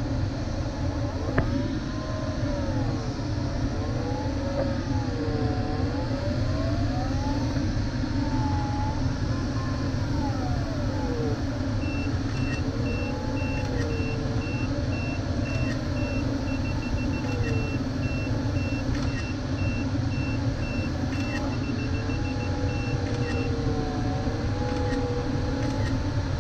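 Steady airflow rush in a glider cockpit, with the variometer's audio tone sliding slowly up and down in pitch as the lift changes. From about halfway through, a higher electronic beep repeats evenly, quickening briefly twice, and stops shortly before the end.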